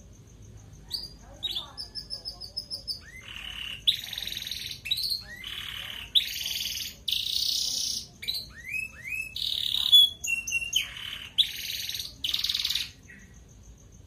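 Domestic canary in full song: a long, fast string of rolling trills, buzzy rolls and rising whistled sweeps, starting about a second in and stopping shortly before the end.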